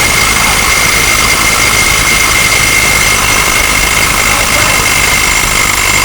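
Power impact wrench running steadily on a stuck lug nut, a loud even whirr with a high whine, cutting off suddenly at the end.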